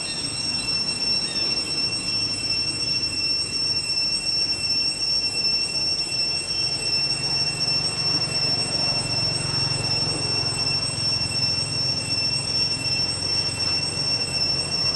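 Cicadas droning in a steady high-pitched chorus that holds one pitch and level without a break.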